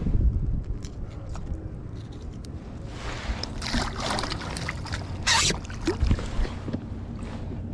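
Sand trout on a rope stringer splashing at the water's surface beside a kayak as the stringer is hauled up, the splashing strongest from about three seconds in with one sharp splash just after five seconds. A low handling rumble at the start and a few dull knocks about six seconds in.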